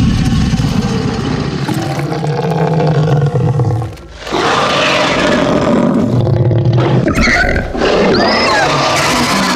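Dragon roaring: two long, loud roars with a short break about four seconds in. The second ends in higher, wavering cries.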